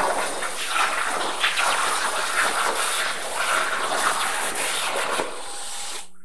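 Plasma cutting torch on an Arclight Dynamics CNC plasma table cutting metal: a loud, steady hiss from the arc and its air. It cuts off abruptly about six seconds in as the torch shuts off at the end of the part.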